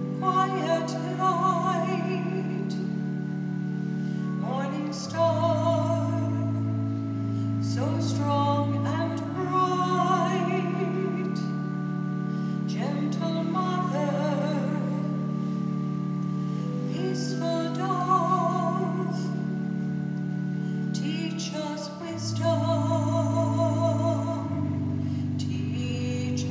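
A solo voice sings a slow sacred song with strong vibrato, in phrases that begin with upward slides, over sustained organ chords that change every few seconds.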